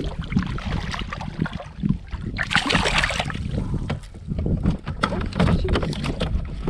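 Out on the water in a kayak: wind rumbling on the microphone, with a rush of noise about two and a half seconds in and a run of short clicks and knocks in the second half.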